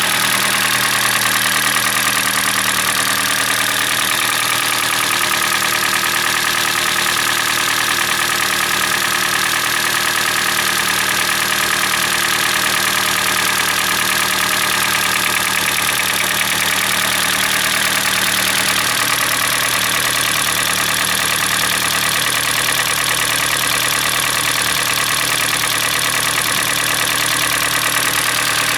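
Hyundai Elantra's G4NB 1.8-litre four-cylinder petrol engine idling cold, with a steady piston knock. The knock comes from scored cylinder walls.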